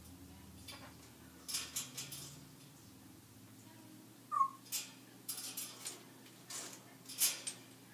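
African grey parrot making a run of short, harsh squawks and clicky chirps, with one brief whistled note about halfway through.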